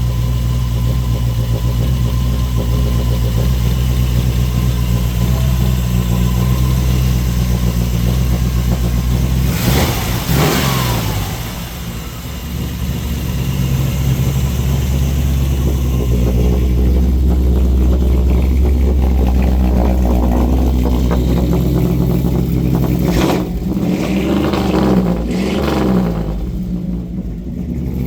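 Chevrolet 327 small-block V8 with aluminum heads, a high-rise four-barrel intake and ram's-horn exhaust manifolds, idling steadily just after being started. It is blipped once briefly about ten seconds in and a few more times near the end.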